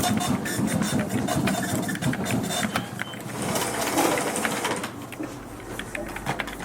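Office ambience: a small office machine running with dense quick clicking over a low rumble, and a burst of hiss from about three seconds in that lasts a second and a half.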